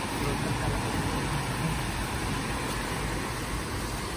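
Steady rushing of a flowing river: an even noise with no distinct splashes or other events.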